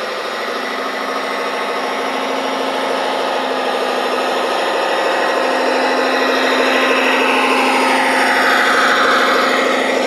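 Radio-controlled model Komatsu HD405 dump truck driving, its drive running with a steady mechanical tone that grows louder as it comes close, loudest near the end as it passes by.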